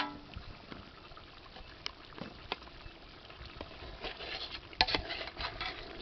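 Crab curry simmering in a large aluminium pot, with a metal ladle knocking and scraping among the crab shells as it is stirred; the sharpest clacks come near the end.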